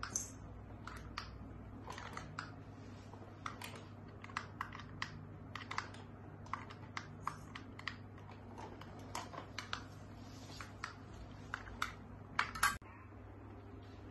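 Irregular light clicks and taps of a kitten pawing and pouncing on a plastic robot toy mouse on a tiled floor, with a louder cluster of clicks near the end that cuts off suddenly.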